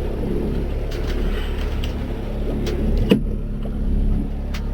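Boat engine running steadily with a low drone, and a sharp knock about three seconds in.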